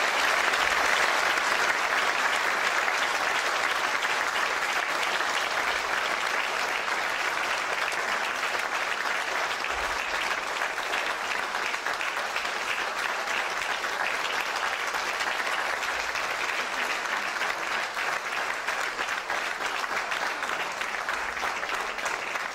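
Audience applauding steadily, dense clapping that eases off slightly near the end.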